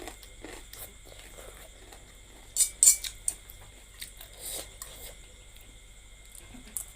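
Eating spicy instant noodles: quiet chewing with an eating utensil knocking and clinking against the bowl, loudest as a quick cluster of sharp clinks about two and a half to three seconds in.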